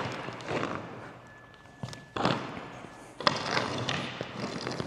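Segments of a shock-corded net boom knocking and scraping on the floor as they are pushed around, with two sharper knocks about two and three seconds in.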